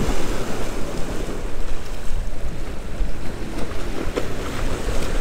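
Wind rumbling on the microphone over small waves washing against the rocks of a jetty; a steady noise.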